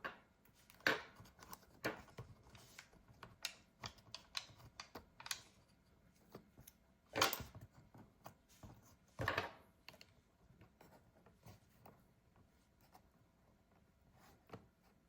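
Irregular small clicks and taps of tools and small metal parts being handled on an opened MacBook Pro during disassembly, with a few louder knocks about 1, 2, 7 and 9 seconds in, growing sparser in the second half.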